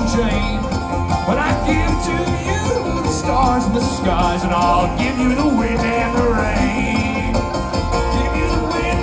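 Live bluegrass band playing: banjo picking over upright bass and guitar, with a steady bass line under quick plucked-string notes.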